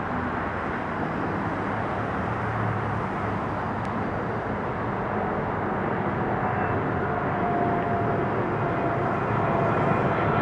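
Boeing 777-300ER's GE90 turbofan engines on final approach with the gear down: a steady jet rumble that grows slowly louder as the airliner nears, with a faint whine coming in during the second half.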